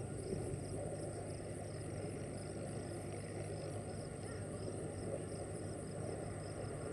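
Low, steady rumble of distant jet aircraft, with a faint, even high ticking over it.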